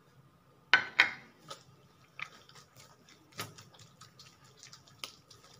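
Two sharp knocks about a second in, then bread dough being kneaded by hand on a granite counter, with soft slaps and small irregular clicks.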